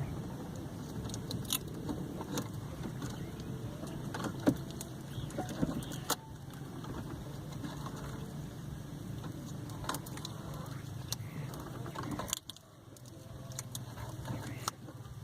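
Hands working on car stereo wiring and electrical tape: scattered clicks and handling noises over a steady low hum.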